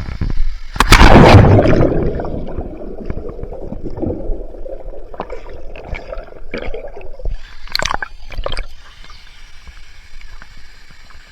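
A person plunging into a waterfall pool: one loud splash about a second in, followed by several seconds of bubbling, gurgling water, with a few sharp splashes near the end.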